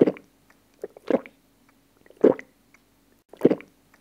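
A person drinking water in gulps: four swallows in a steady rhythm, about one a second, with small wet mouth clicks between them.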